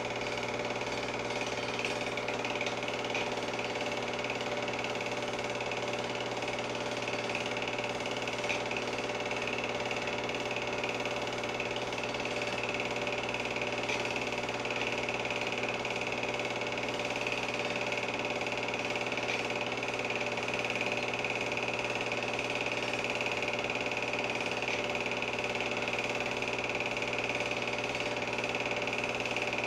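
Film projector running: a steady mechanical whir and clatter from the film transport mechanism, unchanging throughout.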